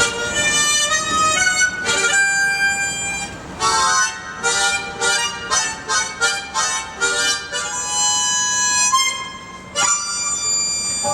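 A tune played on a tremolo harmonica: a few held notes, then a run of short, quick notes, then a long held note. After a brief drop, a new phrase begins near the end.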